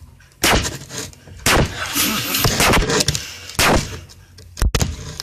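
Baby sledgehammer striking a beer bottle cap: four hard bangs spread unevenly over a few seconds, with clatter between them.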